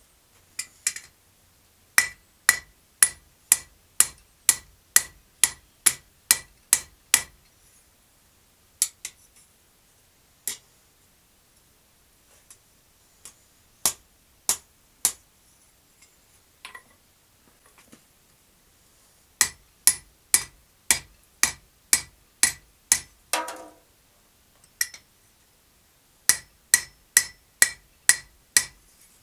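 Blacksmith's hand hammer striking red-hot steel on an anvil, each blow ringing sharply. The blows come in runs of about two a second, with pauses and a few single blows between the runs, and a brief clatter near the end of the third run.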